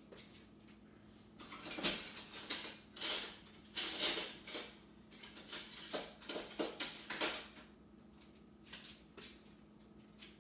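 Kitchen utensils and dishes clattering as a spatula and plate are gathered: a run of clicks and knocks that starts about a second and a half in and lasts about six seconds, over a faint steady hum.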